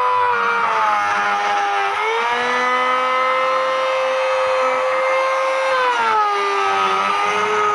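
High-speed electric power-tool motor running with a steady whine. Its pitch sags about half a second in, climbs back about two seconds in and sags again around six seconds, as the motor slows under the load of cutting wood and then recovers.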